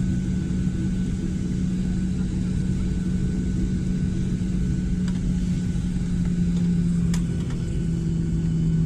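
Airliner's engines running at taxi power, heard inside the passenger cabin: a steady drone with a low hum that dips slightly in pitch near the end, and a couple of light clicks about five and seven seconds in.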